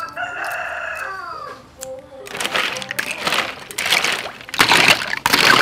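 A rooster crows once at the start, a single call of about a second and a half that drops off at its end. Then sea snails are stirred by hand in a metal bowl of salted water, their shells clattering in repeated loud bursts.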